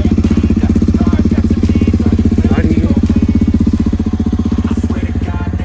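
Motorcycle engine running steadily at low revs close up, an even pulsing note that neither rises nor falls.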